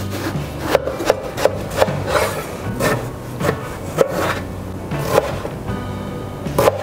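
Chef's knife chopping peeled eggplant on a wooden cutting board, the blade knocking the board at an uneven pace of roughly two strokes a second.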